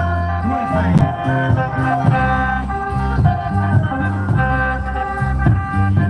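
Loud, lively procession music: drums made from 200-litre oil barrels beat a repeating rhythm under a held, organ-like melody.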